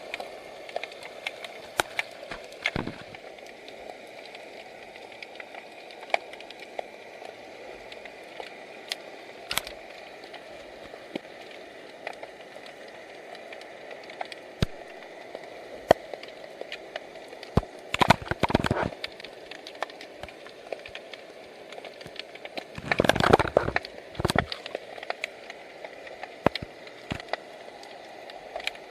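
Scattered sharp clicks and crackles heard underwater over a steady hiss, with two louder rushing bursts about 18 and 23 seconds in.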